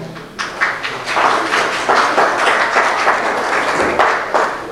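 Applause: a crowd of people clapping, a dense irregular patter that starts just after the beginning and dies away near the end.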